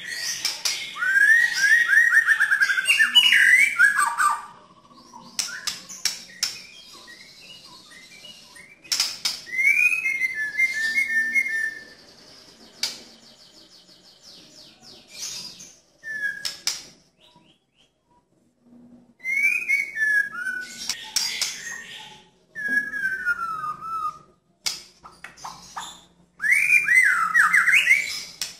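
White-rumped shama (murai batu) singing in loud bursts of varied whistled phrases, fast trills and sharp rapid volleys (the 'nembak' song), with quieter pauses of a few seconds between bursts and a few sharp clicks.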